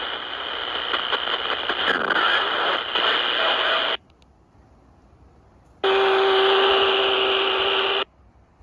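Handheld 27 MHz CB radio's speaker giving out loud hiss and crackle of received signals during a band opening, cutting off suddenly about four seconds in as the squelch closes. Near six seconds it opens again with hiss and a steady low hum tone, then cuts off suddenly again after about two seconds, the scan stopping on busy channels.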